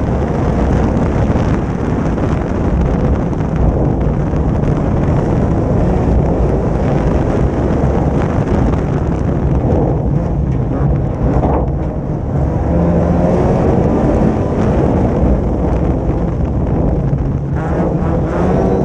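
Folkrace (jokamiesluokka) car's engine run hard at racing speed, heard from a camera mounted on the outside of the car, with wind on the microphone. About twelve seconds in, the engine note dips briefly, then climbs again.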